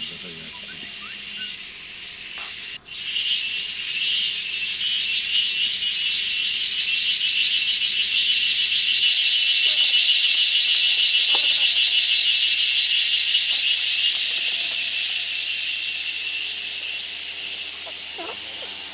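Insects buzzing in chorus: a steady, high-pitched buzz made of very fast pulses. It cuts out briefly about three seconds in, comes back louder, swells through the middle and eases off toward the end.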